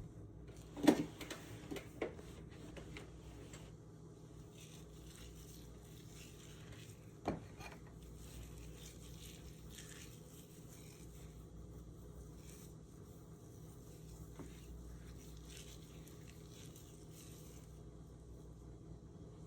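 A few light knocks and handling sounds: a cluster of short knocks about a second in, another around two seconds, and one sharp knock a little past seven seconds, over a low steady hum.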